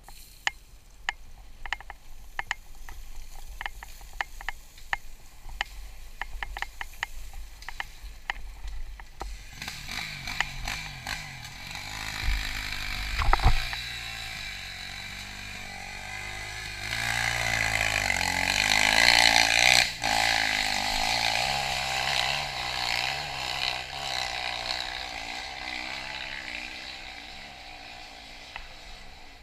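KTM dirt bike engine running, rising to its highest revs about two-thirds of the way through and easing off toward the end, over clicks and rattles of loose shale stones that dominate the first third. A single loud knock about halfway through.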